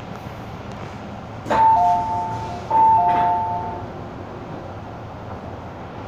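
Two-tone electronic chime on an MTR M-Train, a high note then a lower one, sounding twice about a second apart over the train's steady running noise. It is the kind of chime that comes before an onboard station announcement.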